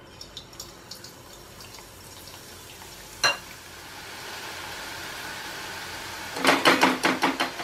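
Spinach-and-gram-flour batter dropping through a perforated slotted spoon into hot oil and sizzling as palak boondi fry, the sizzle building after a few seconds. A single sharp metal clink comes about three seconds in, and near the end a quick run of about eight loud metal taps of the steel ladle and slotted spoon, knocking the batter through.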